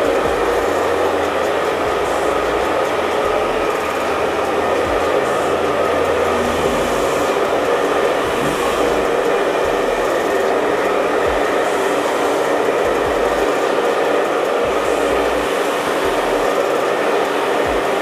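Force Barber hair dryer running steadily, blowing air through its concentrator nozzle: a loud, even rush of air and motor whine.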